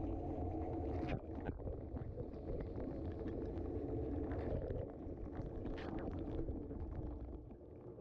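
Dishwasher wash cycle heard from inside the tub: the spray arms throw water against the racks and walls over the steady hum of the wash pump. The sound drops somewhat near the end.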